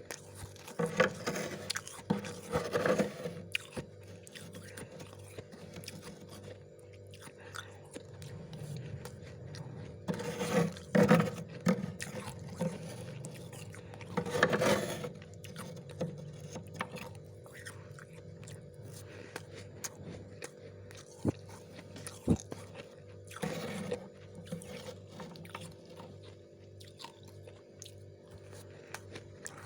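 Freezer frost being scraped, bitten and chewed with crunching, in about five louder bursts among smaller clicks and crunches. A steady low hum runs underneath.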